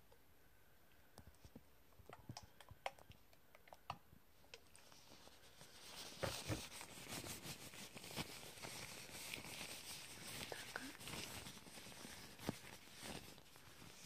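Light scattered clicks and taps from a small plastic squeeze bottle being handled. From about six seconds in, a soft tissue wipes close across the microphone in a dense, quiet rustling and scratching.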